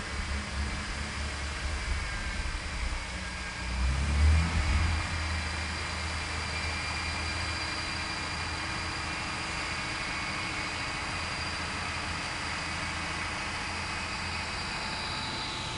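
Off-road 4x4 vehicle's engine running, swelling louder about four seconds in and then holding steady, with a faint high whine over it.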